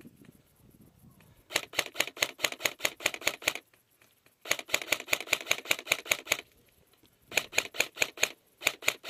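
Rapid mechanical clicking, about ten sharp clicks a second, in four runs of one to two seconds each with short pauses between them.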